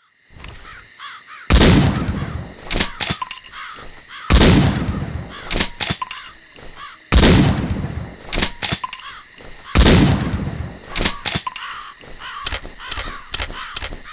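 Mossberg 500 pump-action shotgun fired four times, about three seconds apart, each shot followed by the two-part clack of the pump being racked. Crows caw in the background.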